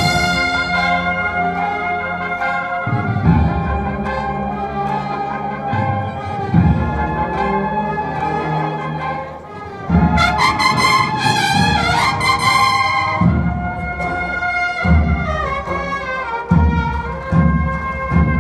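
A large brass band playing live, with sustained brass chords. The music softens about nine seconds in, and the full band comes back louder about a second later.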